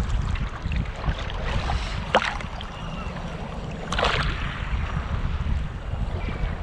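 Wind buffeting the microphone over choppy sea water lapping against a kayak, with two short sharp sounds about two and four seconds in.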